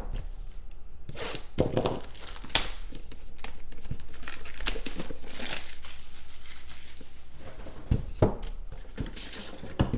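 Plastic shrink wrap being torn and crumpled off a sealed trading-card hobby box, with a few sharp taps as the box is handled.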